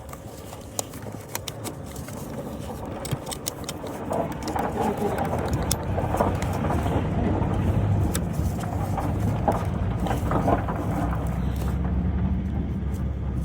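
Light clicks and handling noises as a new camshaft position sensor and its plastic electrical connector are fitted by hand, with a vehicle engine's low hum coming up from about four seconds in and growing louder.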